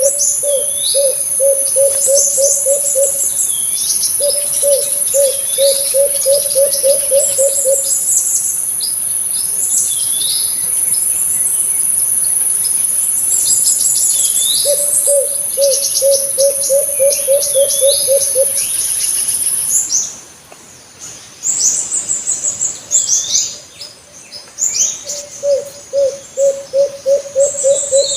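Alimukon dove cooing in four rolling bouts of fast, low, evenly pulsed notes, about four a second, each bout lasting three to four seconds. Small birds chirp high above it throughout. A steady high whine cuts off suddenly about two-thirds of the way through.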